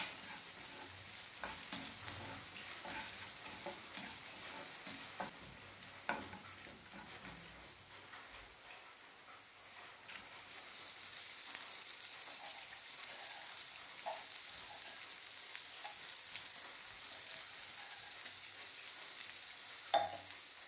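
Chopped ginger, garlic, chillies and coconut pieces sizzling in hot coconut oil in a non-stick frying pan, with a wooden spoon scraping and tapping the pan as they are stirred. About halfway through, chopped onions are tipped in, and the sizzle grows fuller and then carries on steadily.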